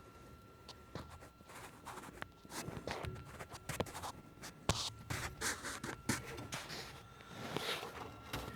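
Scraping, rustling and sharp clicks of hands and tools working inside a furnace cabinet, sparse at first and busier from about two seconds in, over a faint steady high-pitched tone.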